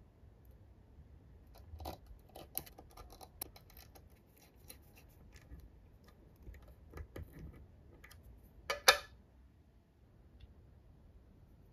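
Small metal parts of an engine model kit clicking and tapping as they are handled with tweezers and a small screwdriver while screws are fitted into the crankshaft bearing caps: a run of light irregular clicks, with one louder metallic clack near the end.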